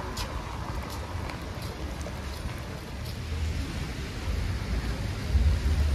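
Steady rain falling on wet pavement and standing water, with scattered drop ticks. A low rumble underneath swells near the end.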